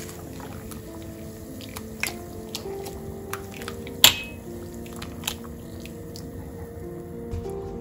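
A metal ladle pressing and turning a water-soaked cloth bag of dried indigo leaves in hot water in a stainless steel pot: soft squishing and dripping, with a few sharp clinks of the ladle against the pot, the loudest about four seconds in.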